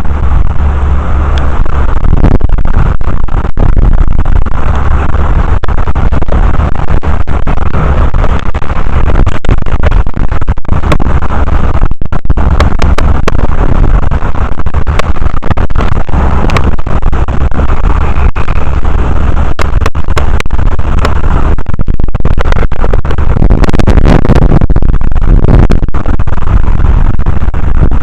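Strong wind blasting the microphone: loud, continuous low rumble and buffeting with constant gusting flutter.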